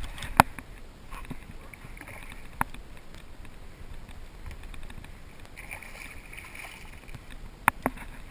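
Sharp knocks and clanks on a jon boat as a bass is landed with a net: one about half a second in, another a couple of seconds later and a quick pair near the end, over a steady low noise of water and wind.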